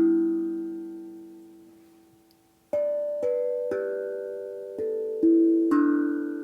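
An AQUADRUM steel tongue drum tuned in G major, played note by note. One note rings out and fades slowly for nearly three seconds, then a run of notes is struck about half a second apart, each left ringing.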